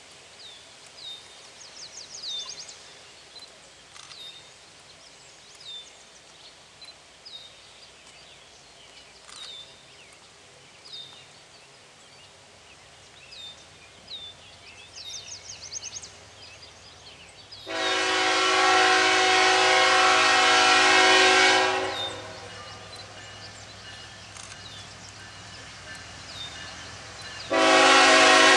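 CSX diesel locomotive's multi-chime air horn blowing one long blast a little past halfway, then a second blast starting near the end, with the low rumble of the approaching engine beneath. Before the horn a bird chirps repeatedly.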